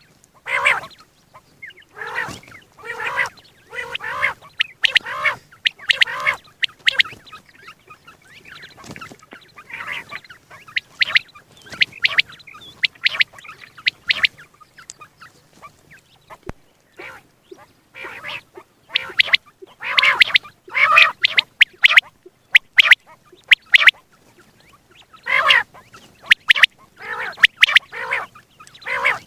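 Common quail calling over and over: short, rapid calls in bursts, with a brief lull a little past the middle.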